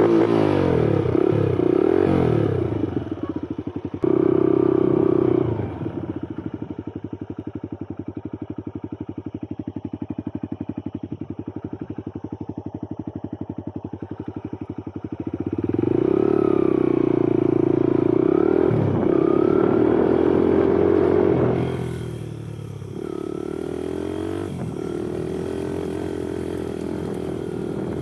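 Kuba Black Cat off-road motorcycle engine, just started, revved up several times and dropping back to a lower, even, pulsing run between the revs.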